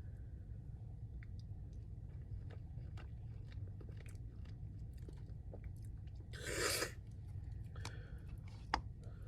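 Close-miked chewing of fried chicken, with small wet mouth clicks throughout and one loud crunchy bite about two-thirds of the way in, over a steady low hum.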